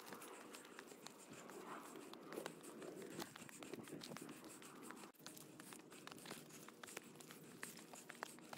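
Faint footsteps crunching on a hill trail, with many small scattered ticks and crackles.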